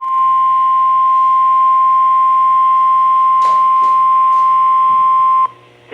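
NOAA Weather Radio warning alarm tone: a single steady 1050 Hz beep held for about five and a half seconds, then cutting off abruptly, signalling that a warning broadcast is about to follow. A few faint crackles of static come through partway along.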